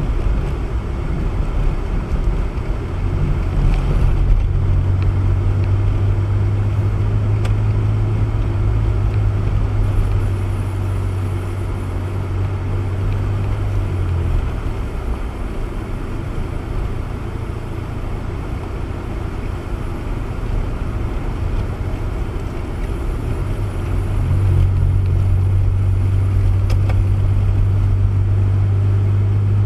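A car being driven: a steady engine drone with road and tyre rumble. The low drone gets louder from about three seconds in until about fourteen seconds, then again over the last five seconds.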